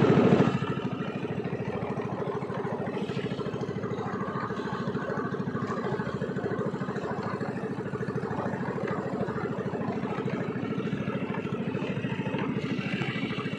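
Small 15-horsepower gasoline engine of an outrigger fishing boat running steadily, its rapid, even firing pulses going on without a break.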